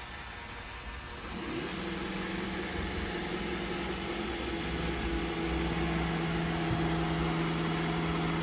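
iRobot Roomba i7 robot vacuum running: a steady motor and brush whir that grows louder about a second and a half in. A steady hum in it drops a little in pitch about halfway through, and it all stops abruptly at the end.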